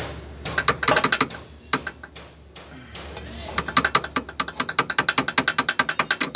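Ratchet wrench clicking in quick runs of ticks, a short burst about half a second in, then a steady run of about eight ticks a second from about three and a half seconds in, as a nut on the truck's cab-tilt hydraulic cylinder mount is worked loose.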